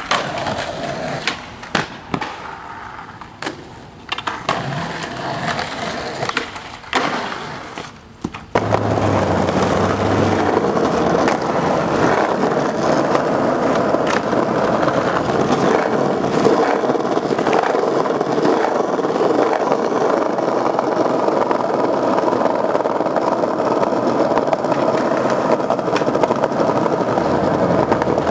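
Skateboard wheels rolling on concrete, with board pops, clicks and landings. About eight seconds in, a steady loud rush takes over and runs on evenly, with faint board clicks over it.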